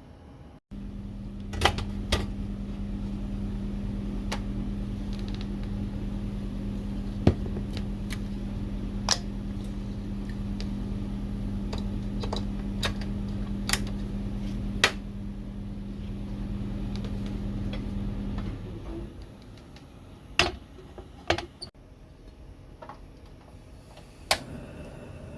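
A mains-powered appliance hums steadily at a low, even pitch, starting abruptly and stopping after about eighteen seconds. Light clicks and knocks are scattered over it, and a few more follow once it stops.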